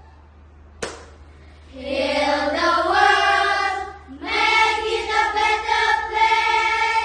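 A group of children singing together in unison: two held phrases, the second starting about four seconds in. Just before the singing, a single sharp click.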